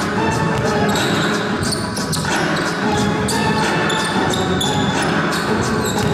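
Basketball game sound: a ball bouncing on the court with many short sharp thuds and brief high squeaks, over a steady crowd hubbub in a large hall.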